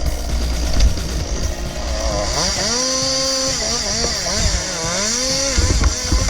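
Two-stroke chainsaw running at high revs from about two seconds in, its pitch dipping and rising as it works, then dropping away near the end.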